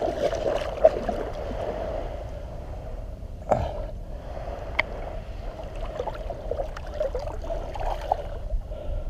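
Shallow seawater sloshing and lapping steadily, with small scattered splashes and one sharper knock about three and a half seconds in.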